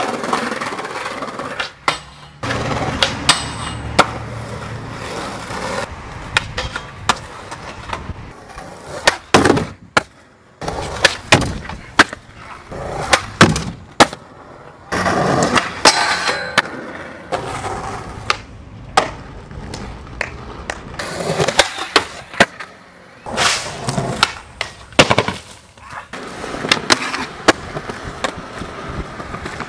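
Skateboard wheels rolling over concrete and tile, with repeated sharp clacks and slaps of the board popping, hitting and landing tricks.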